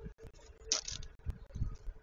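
A cat jumping onto a wooden bird-feeder tray heaped with sunflower seeds: faint rustling and small clicks, with a short hiss near the middle.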